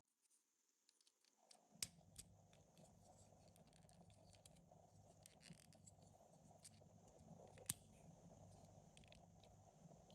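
Faint clicks and taps of plastic LEGO Technic parts being handled and pressed together, with two sharper clicks about two seconds in and near eight seconds, over a faint steady hum.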